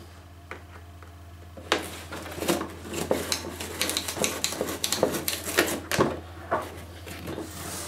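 Knife blade cutting through the glued seal of a cardboard box: a run of irregular short scraping cuts that starts about two seconds in, over a steady low hum.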